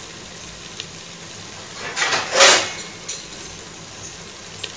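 Thick masala gravy with fried sandge sizzling faintly in an open pressure cooker pan, with a short, loud clatter about two seconds in.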